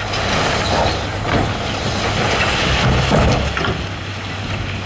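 Diesel engine of heavy road-construction machinery running with a steady low hum, under a louder spell of noise for the first three and a half seconds or so.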